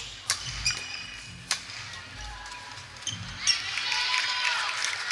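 Badminton hall sounds: a few sharp, echoing hits of rackets on shuttlecocks in the first second and a half, then from about three seconds in a busy mix of players' voices and court noise.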